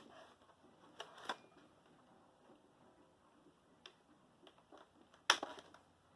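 A few short clicks and knocks from handling a cordless band saw, with no motor running; the sharpest knock comes about five seconds in.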